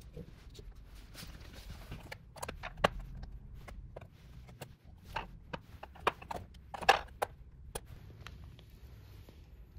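Small clay pieces being handled and set down on a board and table: a scattering of light, irregular knocks and taps, the loudest about three seconds in and again near seven seconds.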